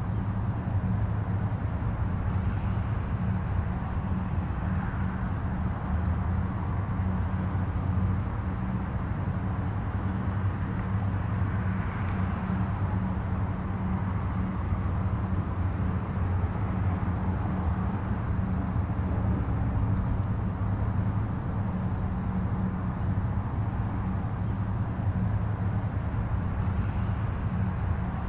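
Distant highway traffic: a steady low rumble of tyres and engines, with gentle swells every few seconds as single vehicles pass.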